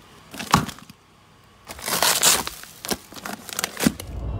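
Plastic bags rustling and crinkling as a Yeti soft cooler and its contents are handled, in several irregular bursts. Near the end a steady low road rumble begins.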